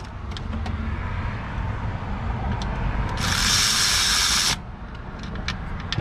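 A cordless power tool runs for about a second and a half, a little over three seconds in, running in a pulley mounting bolt. Light clicks and a low steady hum are heard otherwise.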